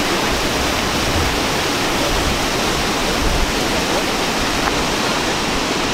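Steady rush of river water flowing over shallow rapids.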